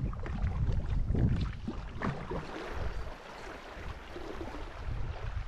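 Water washing and splashing against a kayak hull as it moves through the water, with wind buffeting the microphone as an uneven low rumble.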